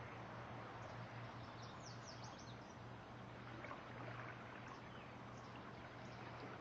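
Faint steady outdoor noise with a low hum underneath, and a bird chirping a quick run of high notes about two seconds in.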